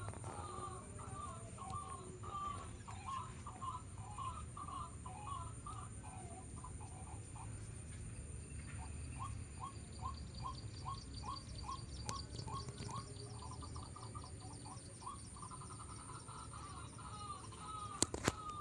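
Bird calls repeating without a break: a run of short notes, then, about nine seconds in, a quicker even series of about three notes a second, with a faint steady high-pitched insect-like whine behind. Two sharp clicks just before the end.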